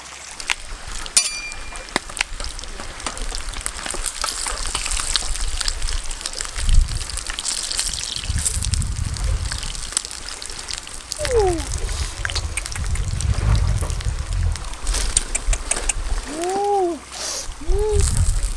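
Frogs frying in hot oil in a wok over an open wood fire: a steady sizzle with many small crackles, over a low rumble. Near the end come a few short calls that rise and fall in pitch.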